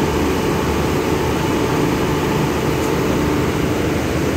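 A passenger train standing at the platform, its machinery running with a steady low rumble and hum that does not change.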